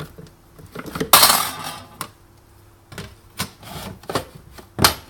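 Espresso machine drip tray parts being pulled out and handled: a rattling scrape about a second in, then scattered clicks and knocks, the sharpest near the end.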